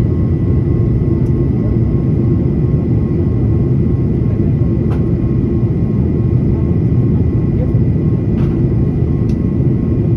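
Jet airliner cabin noise in flight, heard from a window seat beside the wing engine: a steady, loud rumble with a faint, steady high whine over it.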